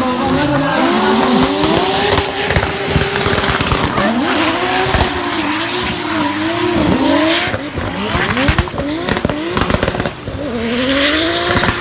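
2JZ-swapped BMW E46 drift car, its inline-six revving up and down hard over and over while its tyres squeal. About ten seconds in, the revs drop briefly and then climb again.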